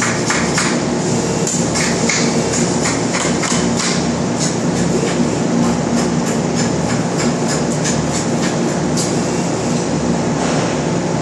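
Welding-shop floor noise: a steady machinery hum with irregular sharp metallic clanks and crackles.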